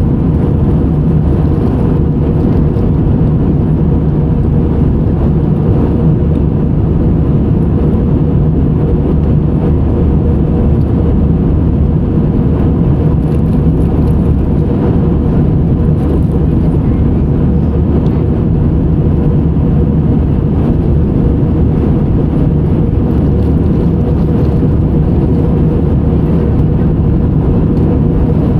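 Steady low rumble of engine and airflow noise inside an airliner cabin in flight, unchanging in level.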